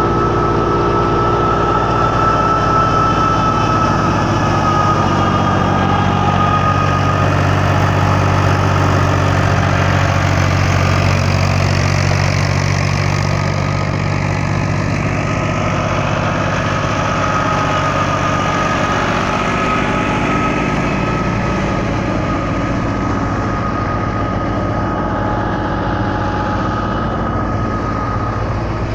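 Tractor diesel engine running steadily under load while powering a wheat thresher, with a steady high whine and a rushing noise; it eases slightly a little before halfway.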